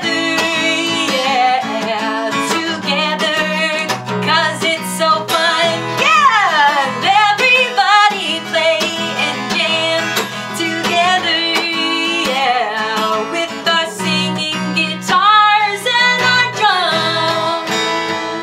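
A woman singing while strumming a Fender acoustic guitar, steady strokes under a lively sung melody.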